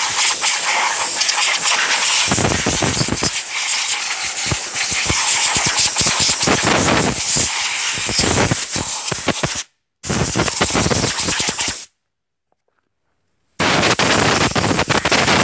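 Compressed-air blow gun blasting oil-soaked sawdust out of a chainsaw's carburetor and air-filter compartment: a loud, rough, crackling hiss. It comes in three blasts: a long one, a short one after a brief stop, and a third after a pause of under two seconds.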